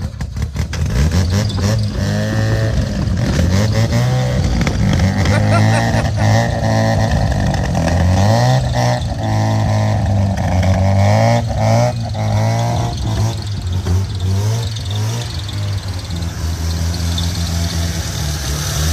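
Mazda RX4's rotary engine running, its revs rising and falling, as it burns off the diesel the engine was filled with, under background music.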